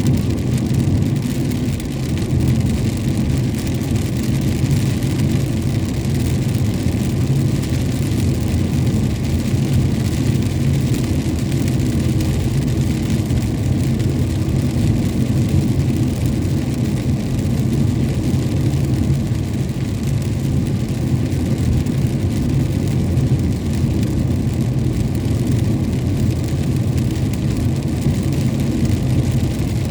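Steady road and engine noise of a vehicle driving in rain, a constant low rumble with the hiss of rain and wet road spray over it.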